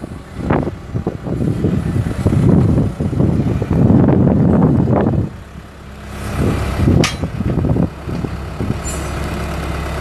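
Skid steer engine running while its loader arms lift a jib crane boom, with uneven surges of noise over the first half. A sharp clack comes about seven seconds in, and the engine then settles to a steady idle near the end.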